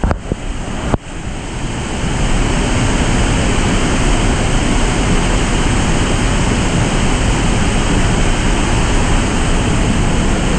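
Tad Yuang waterfall rushing, a loud steady wash of falling water. The sound cuts out briefly twice in the first second, then runs on evenly.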